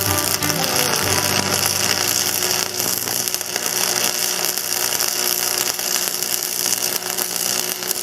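Angle grinder running steadily against the steel of a tractor PTO shaft, a continuous harsh grinding noise.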